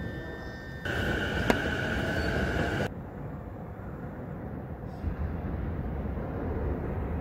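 JR Saikyō Line E233-series electric train rumbling low on the tracks below. A two-second stretch about a second in holds a steady high whine and one sharp click, cut in and out abruptly.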